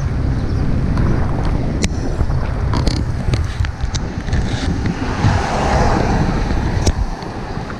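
Wind buffeting the microphone of a camera riding on a bicycle coasting downhill: a loud, low rumble, with a few sharp clicks.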